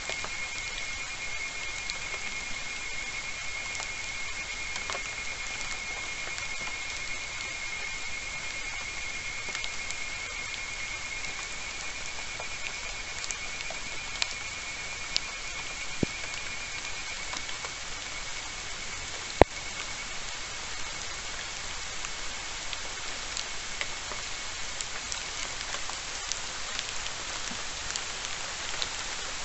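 Steady rain falling in forest, with scattered drops ticking and one sharp crack about 19 seconds in. A high, steady, finely pulsing trill runs through the first part and fades out about 26 seconds in.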